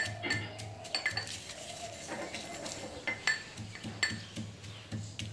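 Metal pestle pounding dry-roasted whole spices and dried red chillies in a metal mortar. The strikes are irregular clinks with a bright metallic ring.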